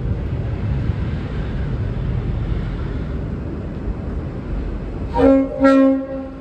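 V/Line N class diesel locomotive running in with a low rumble, then two blasts on its Leslie RS5T horn near the end: a short toot followed at once by a longer one.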